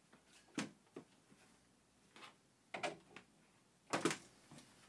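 Plastic cowl air-intake grille of a Peugeot 308 being worked loose by hand: a series of short plastic clicks, knocks and scrapes, the loudest about four seconds in.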